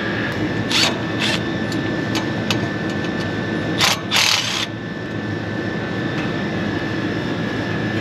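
Steady drone of running rooftop air-conditioning equipment with a thin steady whine. Over it come a few short bursts from a cordless driver with a 5/16 bit backing out the condenser fan motor's bracket screws; the longest burst, about half a second, comes about four seconds in.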